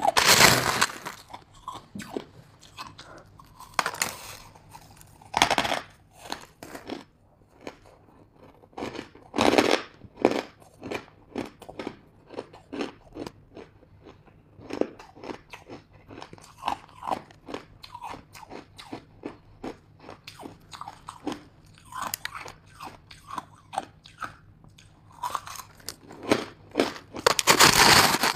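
Hard ice chunks with buckwheat grains bitten and chewed close to the microphone: many short, sharp crunches, several a second. A few louder, longer bursts, near the start and near the end, as a metal spoon digs into the ice in a plastic tub.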